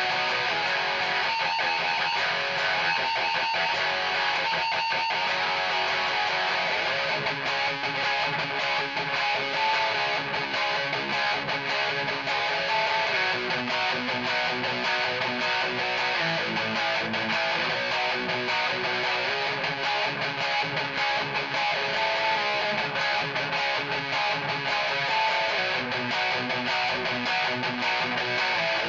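Electric guitar with EMG 81/85 active pickups, played through a Peavey 6505 Piranha amp and 1x8 cabinet on a high-gain metal tone: continuous distorted riffing with no pauses.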